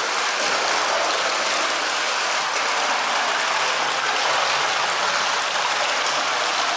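Thermal-spring water pouring steadily from a wall spout into a tiled bath as it fills, a constant splashing rush.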